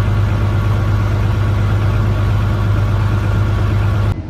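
Combine harvester running steadily, a constant low engine hum with steadier machine tones above it. It cuts off suddenly near the end.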